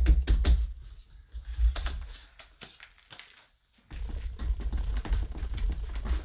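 Potting soil being worked by hand in a plastic plant pot, with knocks and crumbly clicks. After a short break partway through, potting soil is poured from a plastic bucket into the pot, a steady pattering rustle of falling earth.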